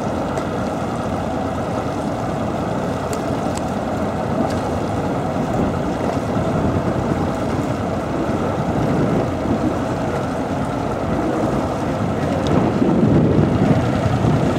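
Steady rumble of a boat's motor running, mixed with wind buffeting the microphone, growing a little louder near the end.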